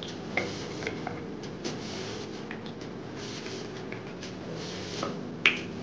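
Tap water running into a bathroom sink and splashing over hands being rinsed and rubbed together, with a few light clicks and knocks; a sharp click near the end is the loudest sound.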